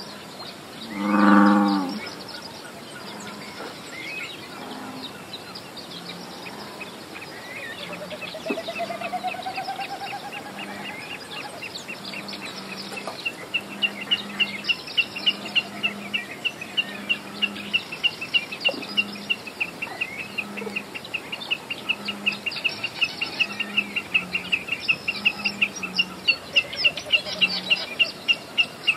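Field recording of birds calling outdoors. About a second in comes one loud low call; soft low notes repeat through the middle. From about 13 s a bird gives a long, steady series of high chirps, roughly two to three a second.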